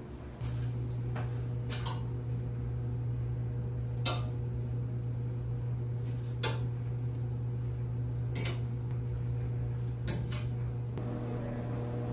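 Clothes hangers clicking and clinking against a metal shower rod, about seven sharp knocks a second or two apart, over a steady low hum that comes on about half a second in.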